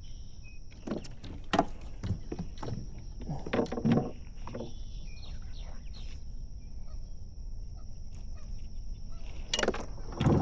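Steady high insect drone with several short knocks and thumps from handling a fish in a kayak, clustered about a second in, around four seconds in, and near the end.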